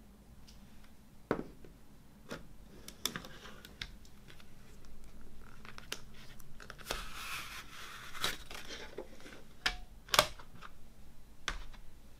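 Plastic CD jewel case being handled and opened: a series of sharp plastic clicks, with a paper booklet rustling for a second or two as it is slid out from the case. The loudest click comes about ten seconds in.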